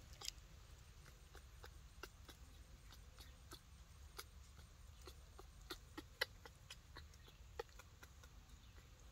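Faint, irregular soft clicks and smacks of a baby monkey chewing fruit fed to it from a person's fingers, the loudest about six seconds in.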